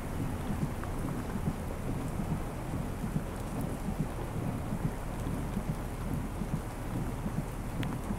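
Rain falling on wet pavement, with a steady low rumble underneath that rises and falls.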